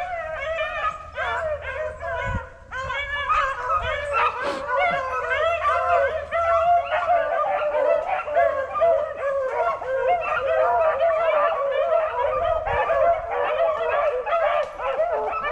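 A pack of beagles baying, many voices overlapping in a continuous chorus of yelps and howls, as the hounds run a rabbit's trail.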